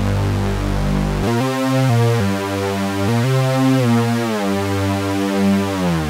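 Melbourne Instruments NINA synthesizer playing a preset: a held low note, then a run of chords changing about every half second that slide down in pitch near the end.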